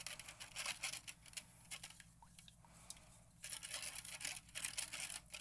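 Spoons stirring and scraping against the sides of two bowls, one of borax solution and one of glue mixed with water: a quick run of scrapes and clicks that eases off for about a second in the middle, then picks up again.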